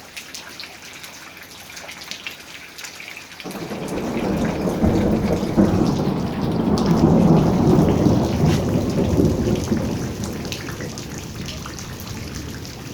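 Steady rain with a rolling thunderclap: a deep rumble starts about three and a half seconds in, builds for a few seconds, then slowly fades under the rain.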